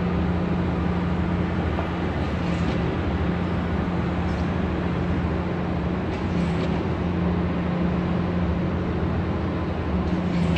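Steady city noise: a continuous traffic rumble with a steady low mechanical hum over it.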